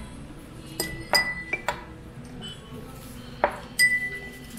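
Stainless steel chopsticks clinking against a ceramic plate and against each other while picking grilled fish off the bone. There are several sharp clinks about a second in and two more past the three-second mark, a few with a brief ringing tone.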